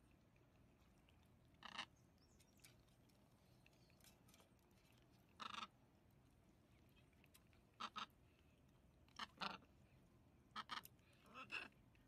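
Blue-and-gold macaws giving short calls, about nine in all, several in quick pairs, over a very quiet background.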